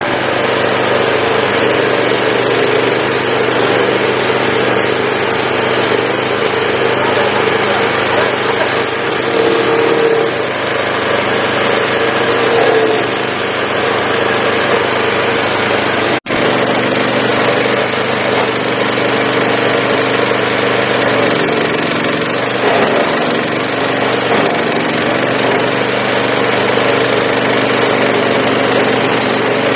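Stump grinder's engine running at a steady speed, with a brief break in the sound about sixteen seconds in.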